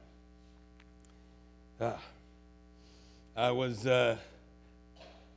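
Faint steady mains hum, a set of even tones that never varies. A man's voice breaks in briefly with a short syllable about two seconds in and a couple of words a little after three seconds.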